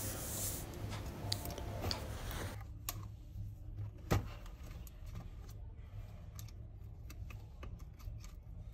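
Small clicks and knocks of a laptop's plastic and metal chassis parts being handled and set together, with soft rustling at first and a sharper knock about four seconds in.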